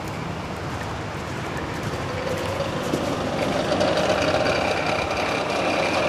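A motor vehicle running and growing gradually louder, with a faint steady hum that comes in about two seconds in.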